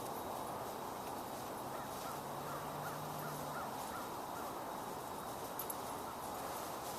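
A bird calls a quick run of about seven short, repeated notes a couple of seconds in, over steady outdoor background noise.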